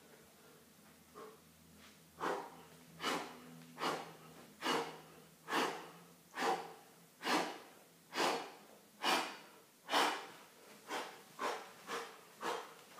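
A man's hard, rhythmic breathing during a push-up set: about ten strong breaths just under a second apart, one with each push-up. Near the end they turn quicker and lighter as he moves into cross knee-ups in the plank.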